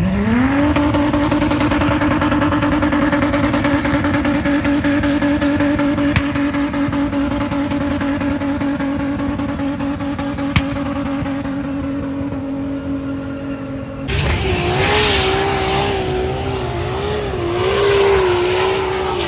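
Car engine revving up in the first second, then held at a steady high pitch for about thirteen seconds. About fourteen seconds in it changes abruptly to another engine sound whose pitch wavers up and down.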